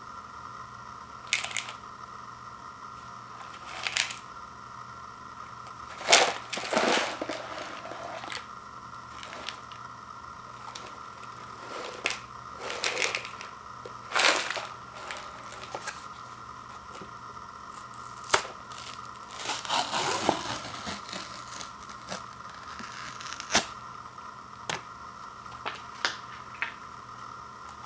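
A microwavable macaroni cup handled and its peel-off lid pulled back: scattered short clicks and crinkling rustles, with a longer tearing rustle of about two seconds around twenty seconds in.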